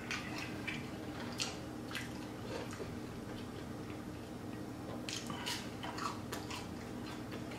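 A person chewing chicken nuggets close to the microphone: scattered wet mouth clicks and smacks, with a cluster about five to six seconds in, over a faint steady hum.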